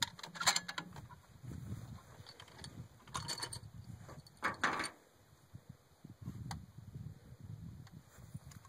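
A few short mechanical clicks and rattles from handling a Remington 700 bolt-action rifle as the shooter settles in behind it, the loudest about four and a half seconds in. A low rumble runs underneath.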